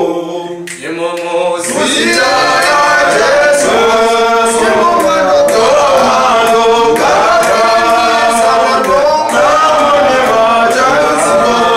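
Male a cappella group of six voices singing a Shona gospel song in close harmony, with no instruments. The singing is softer and thinner for the first second or two, then the full group comes in and carries on steadily.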